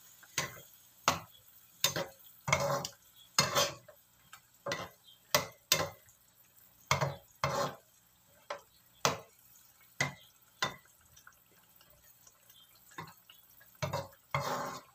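Spatula scraping and knocking against a wok as a saucy stew is stirred: short, irregular strokes, roughly one or two a second.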